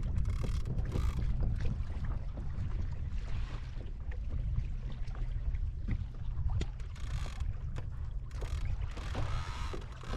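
Wind rumbling on the microphone aboard a fishing kayak on the open ocean, with brief spells of water splashing and hissing near the start and again near the end.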